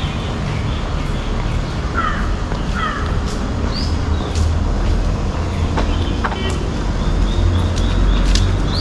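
Busy street ambience: a steady low engine rumble from passing traffic, with short bird calls cutting through, two of them about two and three seconds in, and scattered clicks and knocks.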